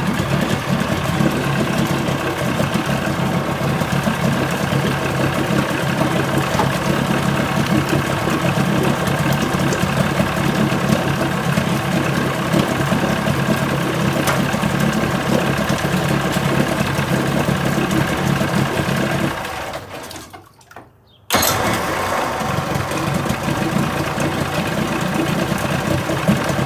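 1980 Chrysler 45 hp two-stroke outboard motor running steadily after a crank-no-start complaint; the mechanic finds nothing wrong and suspects the owners flooded it. About twenty seconds in the sound fades away to near silence for a second or two, then comes back abruptly at the same level.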